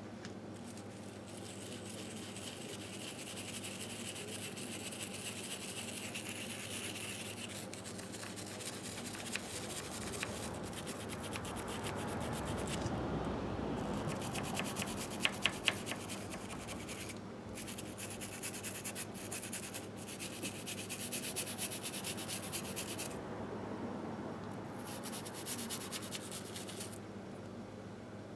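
A small brush scrubbing grime off the aluminium crankcase of a 1958 Harley-Davidson Sportster engine, in quick strokes that come in bouts with short pauses. There are three sharp clicks about fifteen seconds in.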